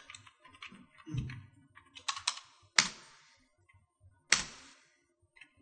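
Computer keyboard being typed on in short, separate keystrokes, a few sharp clicks, the two loudest about three seconds in and just after four seconds.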